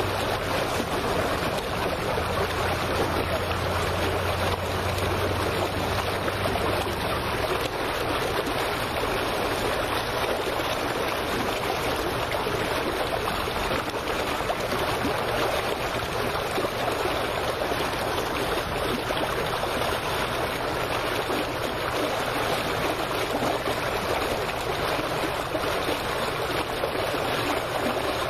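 Steady rushing noise of wind and water lapping near the microphone at the waterline, even in level throughout. A low steady hum is present for about the first six seconds, then drops away.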